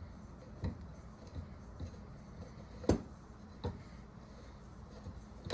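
A handful of sharp metal clicks and knocks from a new frost-proof hose bib being handled and threaded onto its taped pipe fitting, the loudest about three seconds in.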